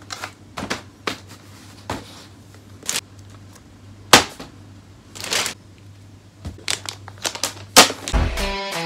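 A cardboard box being handled and set down: a string of sharp taps and knocks with short rustles, over a low steady hum. Music starts near the end.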